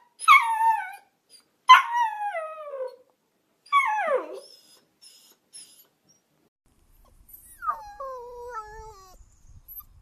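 Samoyed puppy howling: three howls that slide down in pitch in the first four and a half seconds, the second the longest, then a fainter, shorter howl near the end.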